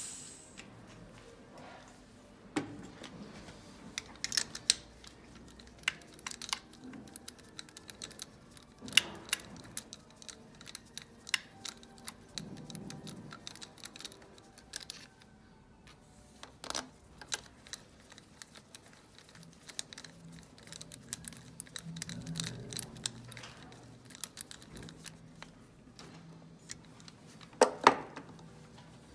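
Scattered metallic clicks and clinks as a compression tester's brass hose adapter is handled and threaded into a glow-plug hole on a diesel cylinder head, with a louder knock near the end. No cranking in between.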